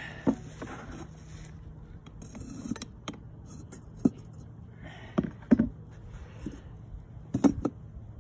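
Sharp metallic knocks and clinks as a steel rod works the ingot molds and a freshly cast copper ingot is knocked out of its mold onto a firebrick: about eight separate knocks, the loudest a little past halfway and near the end.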